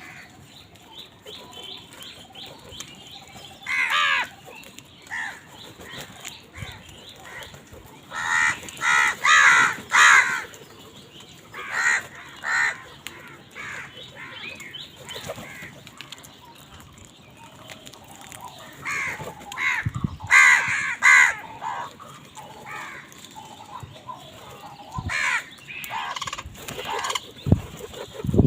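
Several crows cawing: harsh calls in bunches of two to four in quick succession, the loudest runs about a third of the way in and again past the middle, with fainter cawing in between.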